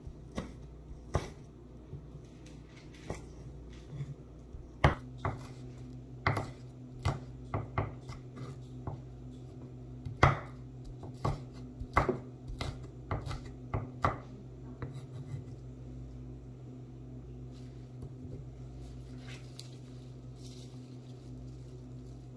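Chef's knife chopping red chilies on a thick round wooden chopping block: irregular sharp knocks of the blade on the wood, stopping about fifteen seconds in. A steady low hum runs underneath.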